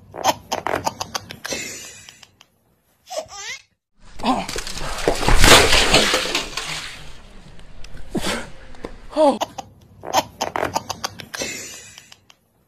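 A baby laughing in quick, repeated giggles. It is broken in the middle by a few seconds of loud rushing noise, the loudest part, after which the giggling resumes.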